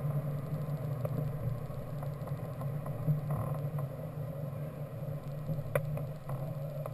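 Grob 103 glider rolling along a paved runway: a steady rumble from its wheel on the pavement carried through the airframe into the cockpit, with a few light knocks and rattles.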